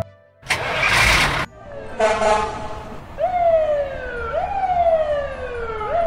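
Toy fire truck's electronic sound effects: a short hissing burst, a brief sound with several tones, then a siren starting about three seconds in, its pitch jumping up and sliding down about once a second.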